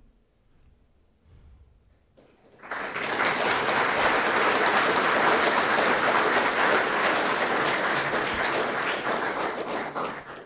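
Audience applauding. The clapping starts abruptly about two and a half seconds in, after a short quiet spell, holds steady and dies away near the end.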